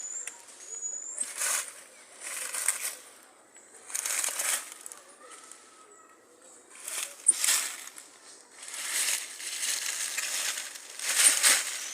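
Rustling noise in separate bursts, about one every second and a half, with short pauses between them.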